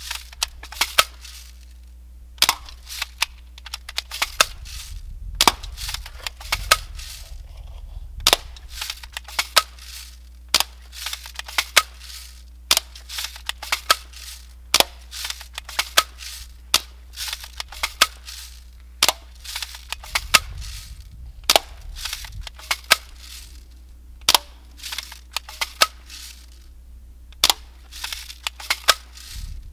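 Daisy Grizzly 840C single-pump air rifle fired in quick succession: a sharp pop about every second, with smaller clicks between shots as the bolt and pump lever are worked.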